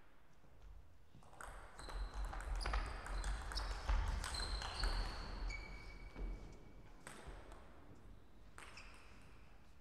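Table tennis rally: the celluloid-type ball clicks off the rackets and pings on the table in quick exchanges, over low thuds. The rally stops about seven seconds in, and then a few lone bounces of the ball follow.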